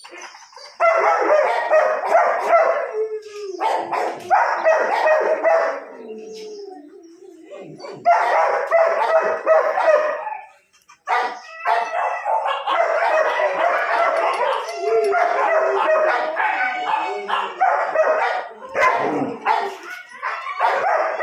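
Several kennelled dogs barking at once: a dense run of overlapping barks that breaks off briefly a few times.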